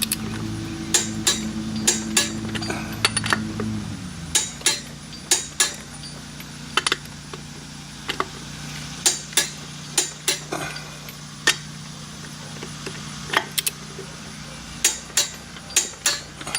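Sharp, irregular metallic clicks and clinks of a Tekton click-type torque wrench and socket working the rear wheel lug nuts up to 40 ft-lb. A steady low hum runs underneath and drops in pitch about four seconds in.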